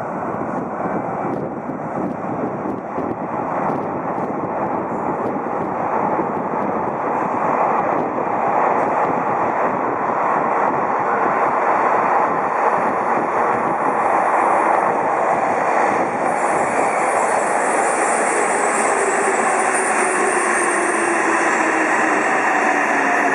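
Yokohama Municipal Subway Blue Line train approaching through the tunnel and running into the station: a rumbling roar that grows louder for about twelve seconds. As it draws alongside the platform, the traction motors give a whine that falls in pitch while the train slows to stop.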